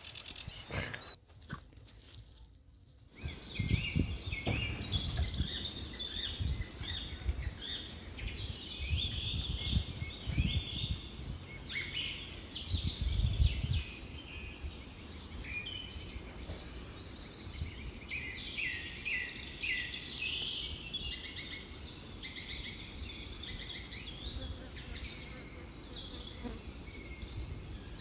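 Small birds chirping in many short, quick calls that begin about three seconds in, over a low rumble.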